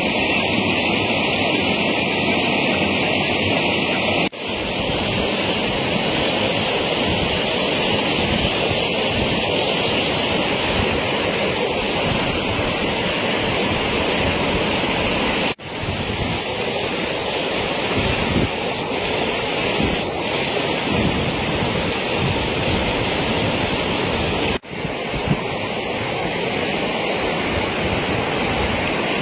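Fast-flowing floodwater rushing steadily, mixed with wind noise on the microphone. The noise breaks off briefly three times, where one clip gives way to the next.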